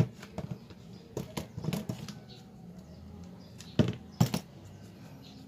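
Vinyl electrical tape being handled and wrapped around a small plastic housing, with short scattered rustles and light clicks, then two sharp snips of scissors about four seconds in.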